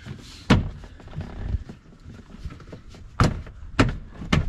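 Plastic dash panel of a John Deere Gator RSX being pressed and snapped back into place by hand: four sharp plastic thunks, one about half a second in and three close together near the end.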